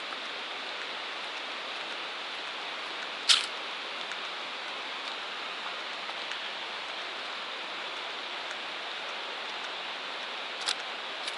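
Creek water rushing over rocks, a steady rush with no pauses. A sharp tap sounds about three seconds in, and two fainter taps near the end.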